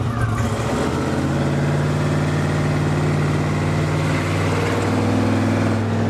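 Drag car's engine running as the car pulls away, heard from inside the cabin. Its note changes about a second in and again about five seconds in.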